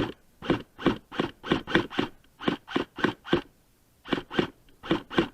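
Airsoft gun firing rapid single shots, about fifteen in quick irregular succession, with a short pause a little past halfway.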